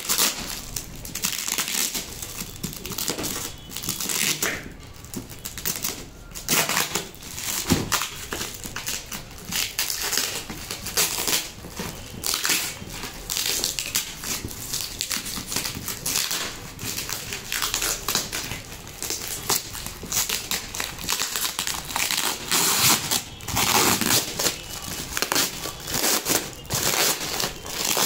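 Plastic packing tape and plastic wrapping being peeled and torn off a cardboard parcel, with irregular crinkling and crackling throughout.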